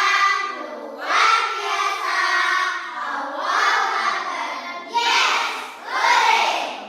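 A class of children singing together in unison, in short phrases of about a second each.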